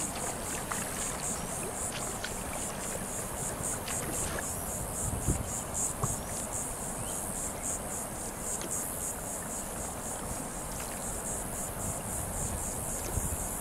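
High-pitched insect chorus chirping in even, regular pulses, over a low wash of water and paddling noise with a few faint knocks.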